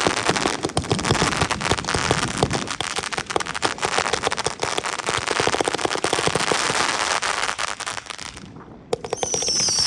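Maddox Rhythm and Booms consumer firework cake going off: dense rapid popping and crackling from its shots and breaks. The crackling dies away about eight and a half seconds in, and just after that a high whistle starts, sliding down in pitch.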